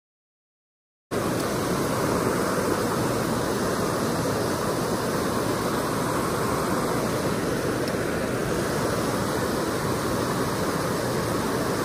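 Silent for about a second, then the steady rush of river water pouring over a low weir and running fast over the stones below it.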